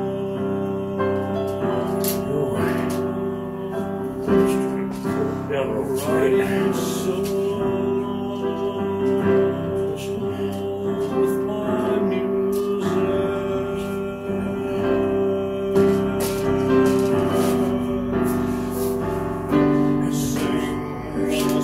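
Background music: a keyboard-led song with a singing voice.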